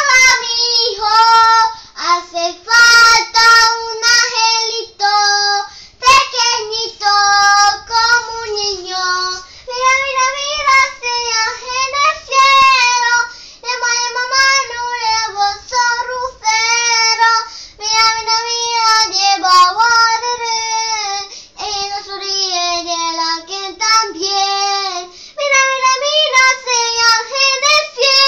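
A young girl singing a Christmas song in Spanish, solo and without accompaniment, in short phrases with brief pauses for breath.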